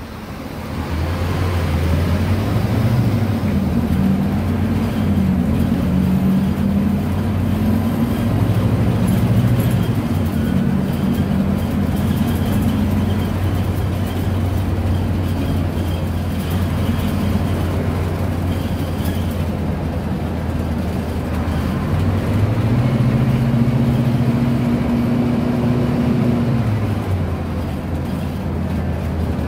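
Scania K250 UB city bus's rear-mounted five-cylinder Scania DC09 diesel, heard from inside the cabin while driving. The engine note shifts up and down with the throttle, climbing about two-thirds of the way through, holding, then dropping near the end.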